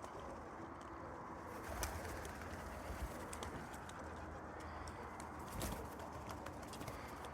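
Pigeons cooing, with a few sharp taps about two, three and five and a half seconds in.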